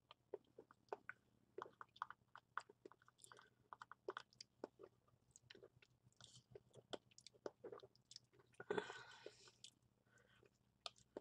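Quiet, close mouth sounds of a person eating chocolate mousse from a spoon: many small wet clicks and smacks, with one longer noisy sound about nine seconds in.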